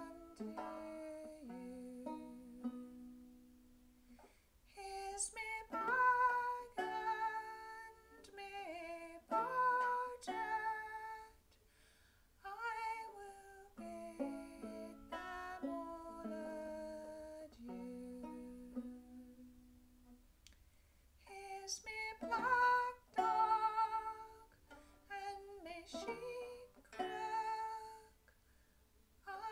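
A woman singing a folk song in phrases, with short breaks between lines, accompanying herself on an open-back banjo.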